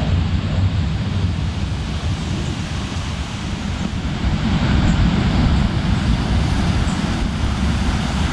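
Strong wind rushing steadily, buffeting the microphone with a low rumble, swelling in a gust about halfway through.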